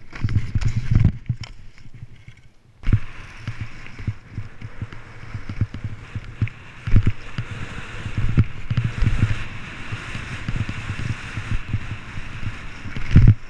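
Skis scraping and hissing over packed snow on a GoPro, with many low knocks as they run over bumps. The sound drops away for about a second, a hard thump comes about 3 s in, and then a steady ski hiss carries on with more knocks.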